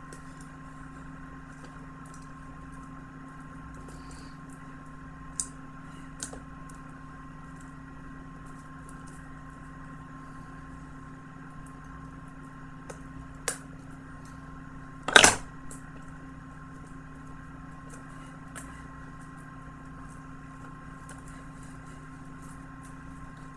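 Plastic shrink-wrap being cut with a small knife and handled: a few sharp clicks, then one louder crackle about fifteen seconds in, over a steady background hum.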